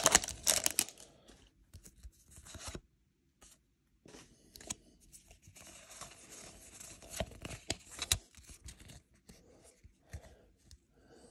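Foil wrapper of a Pokémon TCG Evolving Skies booster pack being torn open, loud for under a second at the start. This is followed by quieter crinkling of the wrapper and the soft slides and clicks of trading cards being handled and shuffled through by hand.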